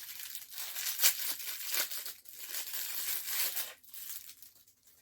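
Packaging being torn open and crinkled by hand: rustling, crackling bursts, loudest about a second in, fading out near the end.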